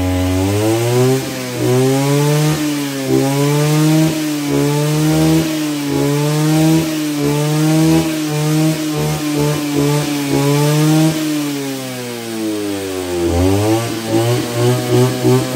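Mitsubishi TL231 23cc two-stroke brush cutter revving with its metal blade spinning free. The engine climbs from idle right away, holds high with small throttle dips, drops back toward idle about two-thirds through, then revs up again near the end.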